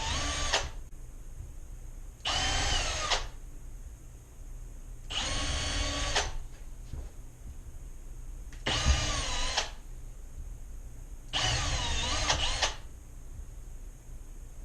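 Power drill running in five short bursts of about a second each, roughly three seconds apart. Its pitch sags and recovers within each burst.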